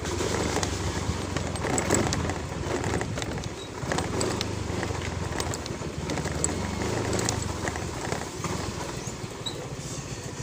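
Yamaha Mio i 125 scooter's small single-cylinder engine running steadily as it rides at low speed, with scattered clicks and rattles over it.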